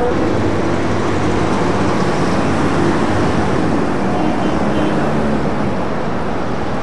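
Steady road traffic noise, an even rumble of passing city traffic without distinct events.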